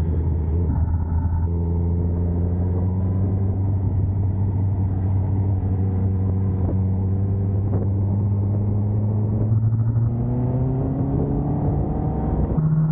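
Sport motorcycle's engine running at a steady note while the bike leans through a corner, then rising in pitch as it accelerates about ten seconds in, with a change in note just before the end.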